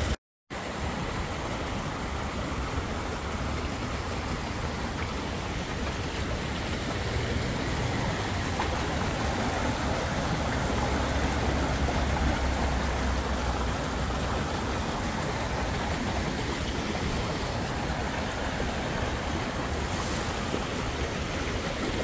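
Steady rushing of water: a small stream running over rocks and water spilling off a wooden waterwheel.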